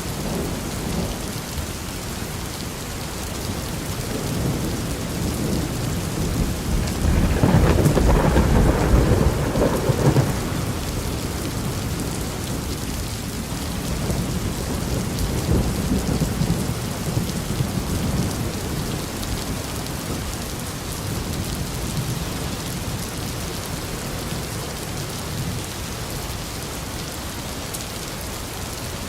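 Thunderstorm: steady rain falling, with thunder rumbling. A loud low roll of thunder swells about a quarter of the way in, and weaker rumbles follow a few seconds later.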